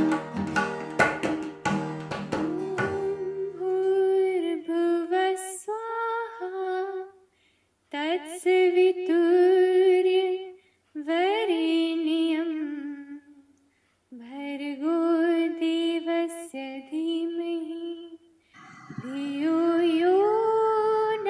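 Indian-style music: a plucked-string instrument and hand drum play for about three seconds, then stop. A solo voice then sings slow, gliding phrases alone, with short silent pauses between them.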